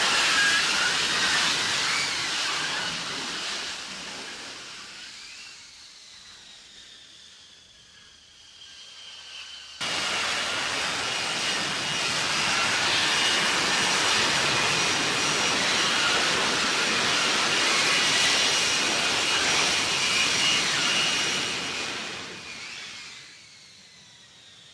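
F-35B jet engine and lift fan running at high power in a hover, a loud rushing roar with a high, steady turbine whine. It fades away over the first several seconds, jumps back to full loudness suddenly about ten seconds in, and dies down again near the end as the jet settles on the runway.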